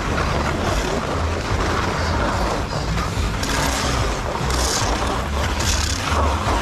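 Wind buffeting an action-camera microphone with a heavy low rumble, over the hiss and scrape of skis sliding across packed, tracked snow. The scraping comes in louder surges about halfway through and again near the end.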